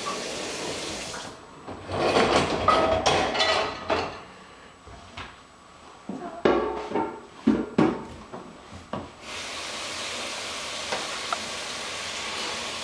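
Dishes and cutlery clattering and knocking in a dishwasher in a run of irregular bangs, set between stretches of steady hiss.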